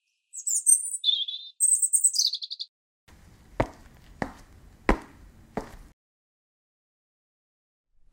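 Birds chirping in short high-pitched phrases for about two seconds. Then four footsteps, evenly spaced about two-thirds of a second apart.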